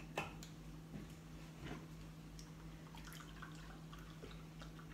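Milk poured from a carton into a plastic measuring jug, faint, with a few small clicks and taps as the carton is handled. A steady low hum runs underneath.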